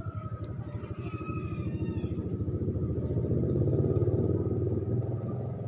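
Motorcycle engine running with a fast, even low pulse. It grows louder to a peak about four seconds in, then eases off.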